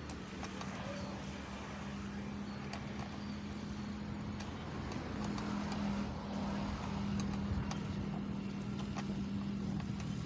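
Steady hum of a motor vehicle engine running nearby, over road traffic noise, growing a little louder about halfway through.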